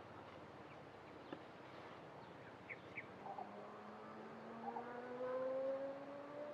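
A faint vehicle engine with its pitch rising slowly and steadily as it accelerates, starting about halfway through and loudest near the end. A few light clicks come before it.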